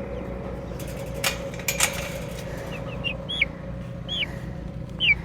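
Chickens peeping: short, high calls that fall in pitch, repeated every half second to a second, with a brief rustle of handling a little over a second in.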